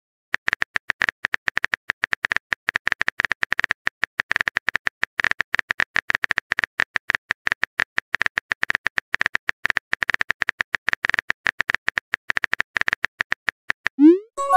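Rapid typing-click sound effect of a virtual phone keyboard: one short click per character as a chat message is typed out. Near the end comes a short rising swoosh as the message is sent.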